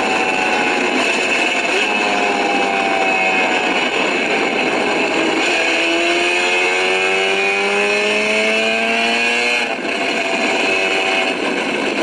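MV Agusta racing motorcycle engine from an onboard recording, played back through a small device speaker with no bass. The engine note climbs steadily through the revs from about five seconds in, breaks off sharply shortly before ten seconds as the throttle closes or it shifts, then picks up again lower.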